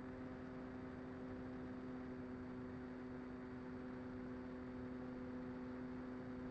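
Electric motor and pusher propeller of a Mini Talon FPV plane at steady cruise throttle: an unchanging hum with a hiss of rushing air, heard from on board the plane.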